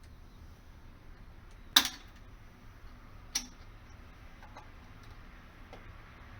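Two sharp clicks while an external fire-alarm tester is handled and set up at a door-phone outdoor unit: a loud one about two seconds in, a softer one about a second and a half later, with a few faint ticks between.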